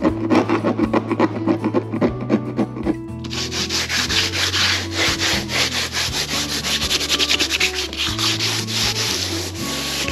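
Background music with a bass line, joined about three seconds in by a rasping sanding sound in quick, even strokes: the plastic Jeep hardtop being sanded so the Raptor liner will stick.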